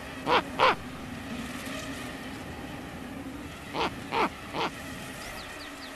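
Adult snowy owl calling: two short calls falling in pitch near the start, then three more about four seconds in.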